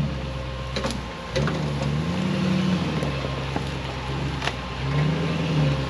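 An off-road 4x4's engine runs low and revs up and settles back twice, with three short sharp knocks along the way.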